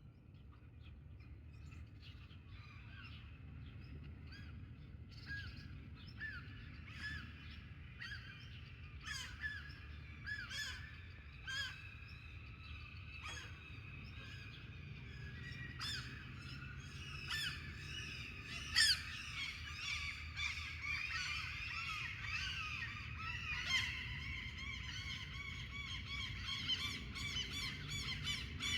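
Many birds calling and singing together in a dawn chorus: a dense stream of chirps and calls that grows fuller and louder over the half minute, over a steady low rumble.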